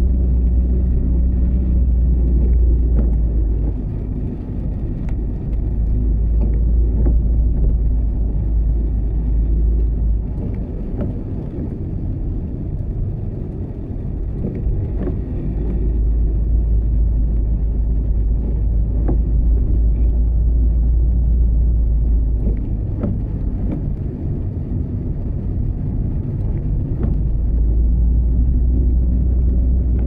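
Steady low rumble and hum of a vehicle running, with scattered light ticks.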